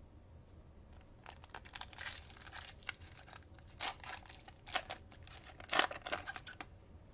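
Foil wrapper of a Panini Chronicles trading-card pack being torn open by hand, crinkling and crackling in irregular bursts from about a second in, the loudest crackle a little before the end.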